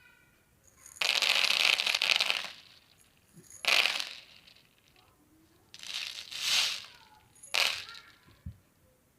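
Small remote-control toy tricycle running in short bursts of rattling and whirring, four bursts of about a second or so each with quiet gaps between.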